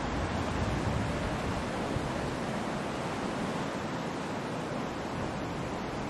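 Ocean surf: a steady wash of breaking waves, a little fuller and deeper in the first couple of seconds.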